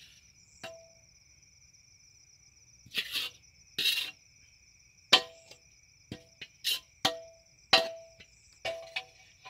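A metal spatula scrapes fried rice out of a metal wok onto a plate: two scraping swishes about three and four seconds in. These are followed by a run of sharp clangs as the spatula knocks against the wok, each ringing briefly.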